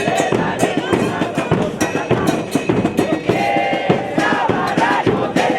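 Football supporters' band drumming a fast, dense rhythm on bass drums, with a held melody over it and a crowd around them.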